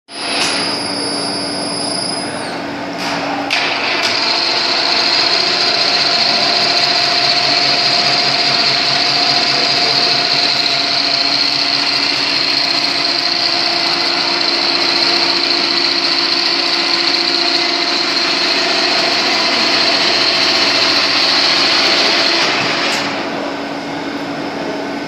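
Milling machine running steadily, a machine hum with several steady tones. About four seconds in, a higher whine joins it, holding until it drops away near the end.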